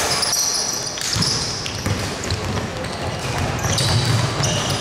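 Basketball game on a hardwood court in a large indoor sports hall: sneakers squeaking in short high squeals, the ball bouncing, and players calling out.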